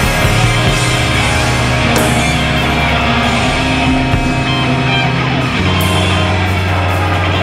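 Loud rock music with electric guitar, an instrumental stretch with no singing.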